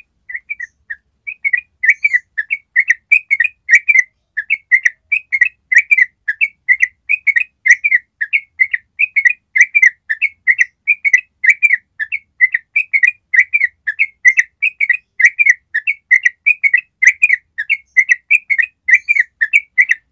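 Yellow-vented bulbul (trucuk) singing its long "ropel" song: an unbroken run of short, quick notes, about three to four a second, kept up without a pause.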